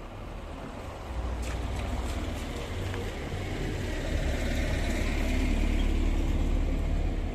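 A motor vehicle rumbling close by, growing louder from about a second in and easing off near the end.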